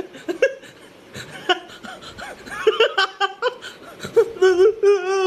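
Laughter in short broken bursts, followed about four seconds in by a long steady held tone.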